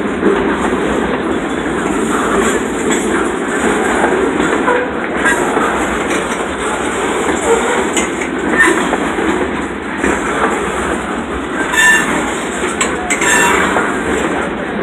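Freight train boxcars rolling past at close range: a steady rumble of steel wheels on the rails with irregular clicks as the wheels pass over the rails and crossing.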